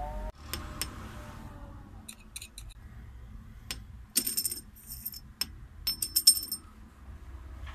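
A small steel disc and steel holder parts clinking against a heavy steel base: a scatter of sharp metallic clicks, with short bright rings about four seconds in and again about six seconds in.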